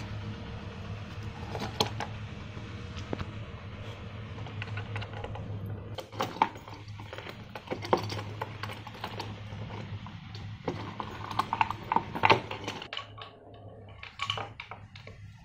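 Scattered small clicks and knocks of metal lamp fittings being handled and fastened to a wooden box, over a steady low hum that drops away near the end.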